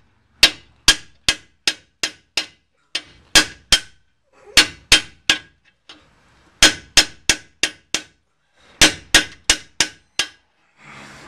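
Hammer blows on a long steel chisel, about three a second in short runs of three to six, each with a brief metallic ring, driving the worn pinion bearing out of a Dana 60 front axle housing.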